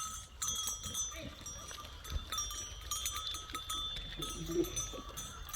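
Livestock bells ringing steadily, with scattered small knocks.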